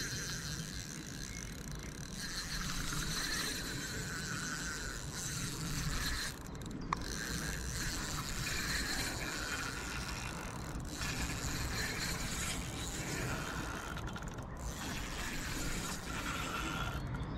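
Spinning fishing reel being cranked, its gears whirring steadily as line is wound in, with brief pauses in the cranking a little after six seconds and at about fourteen and a half seconds, and a single click near seven seconds.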